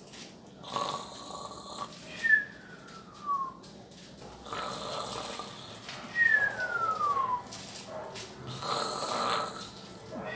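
A person snoring with a whistle, in a repeating cycle: a noisy snore on the in-breath, then a thin whistle on the out-breath that falls steadily in pitch over about a second. Two full cycles, with a third snore near the end.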